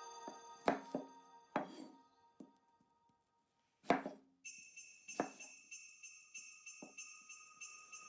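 Quiet Christmas background music: a few separate jingle-bell shakes, a short gap, then held chiming bell tones from about halfway.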